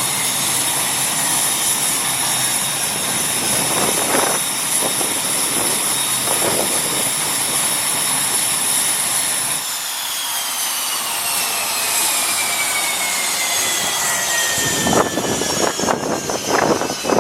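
Turbine engine running with a high whine. About ten seconds in the highest tone cuts out and the pitch slides steadily down as it spools down, and a run of rattling knocks comes near the end.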